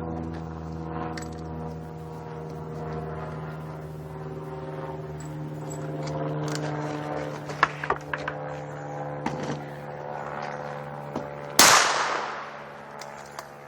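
One rifle shot about eleven and a half seconds in, a sharp crack with a tail that fades over about a second. A few light clicks come before it.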